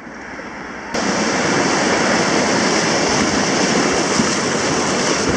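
Rushing whitewater of a small river rapid around a kayak. It comes in abruptly about a second in and then holds as a loud, steady rush.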